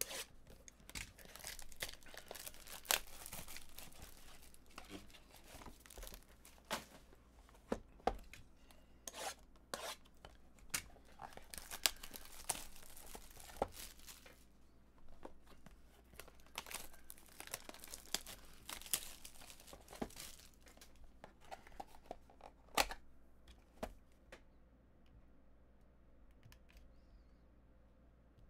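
Wrappers on trading-card boxes and packs being torn open and crinkled by hand: a run of sharp crackles and rips that thins out and goes quieter over the last few seconds.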